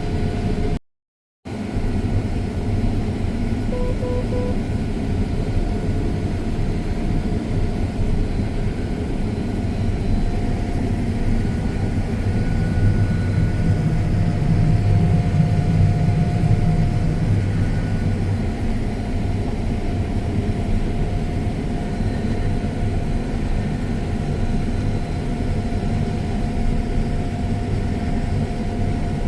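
Combine harvester running steadily, heard from inside its cab as a low, even machine drone. It drops out briefly about a second in, and a few short beeps sound around four seconds in.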